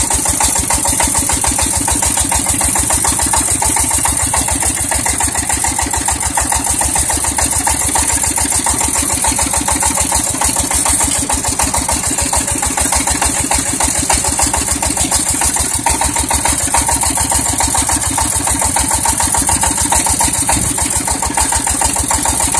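Walking tractor's engine running steadily, with an even, rapid beat of firing strokes.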